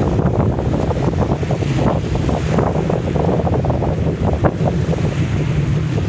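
Strong wind buffeting the microphone over choppy water, with a low steady drone underneath from a pilot launch's engines running at speed.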